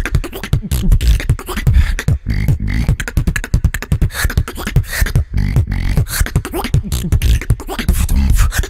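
Human beatboxing: a fast, dense routine of deep bass sounds and sharp clicks and snares in a driving rhythm.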